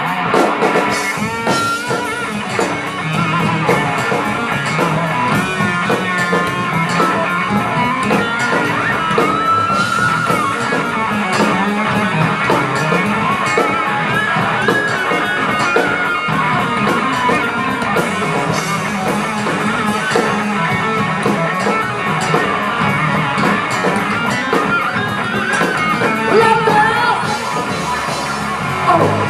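A live rock band playing a breakdown section, with guitar to the fore.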